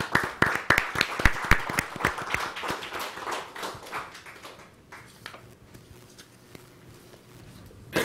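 Audience applauding, the clapping thinning out and dying away over the first four to five seconds, leaving quiet room tone.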